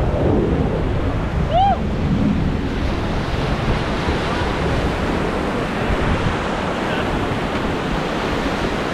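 Whitewater rushing and churning around a river raft in a class III rapid, with wind noise on the microphone. A short shout about one and a half seconds in.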